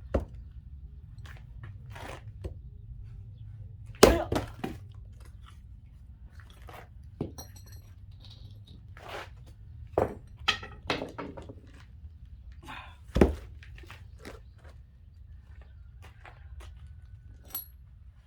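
An axe splitting firewood: irregular sharp wooden knocks and cracks, the loudest about four seconds in and another strong blow about thirteen seconds in, with lighter knocks and clatter of wood pieces between.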